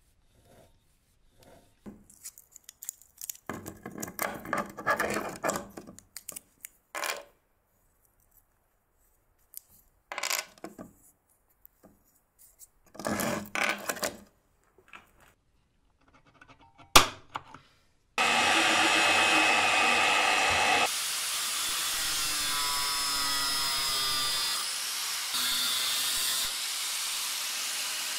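Short bursts of handling noise, with metal scraping and clattering, then a sharp click. About 18 s in an angle grinder starts and runs steadily to the end, its pitch shifting as the spinning disc grinds a small metal part held in a vise.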